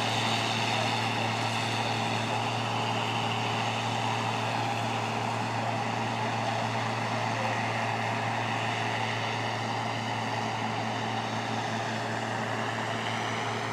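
Cotton stripper running steadily while harvesting: a constant engine drone under an even rushing whir from the machine.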